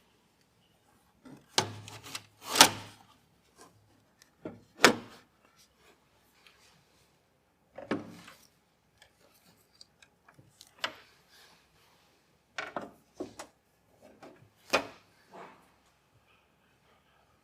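Hard parts being handled during a PC build: irregular sharp clicks and knocks with short rubbing scrapes between them, the loudest strikes about two and a half seconds in and near fifteen seconds.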